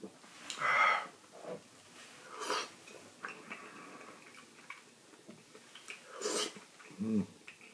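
A person eating hot pot close to the microphone: several short breathy sniffs and slurps, and a brief low hum near the end.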